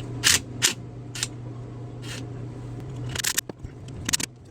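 A series of short, sharp metallic clicks and scrapes as a bonding clamp is worked onto a water pipe, about six in all. Under them a steady low hum stops about three seconds in.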